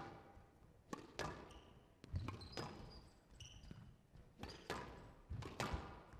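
Squash rally: a quick series of about eight sharp smacks as rackets strike the ball and it hits the front wall and glass walls, with short high squeaks of court shoes between shots.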